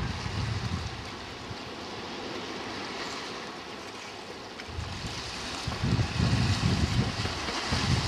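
Wind buffeting the microphone in uneven gusts over a steady hiss of water at the shore. The gusts die down about a second in and come back from about five seconds in, stronger near the end.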